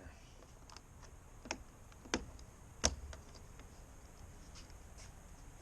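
A few light, scattered clicks and taps, the sharpest nearly three seconds in, from hands handling the power mirror's plastic wiring connectors in the truck door.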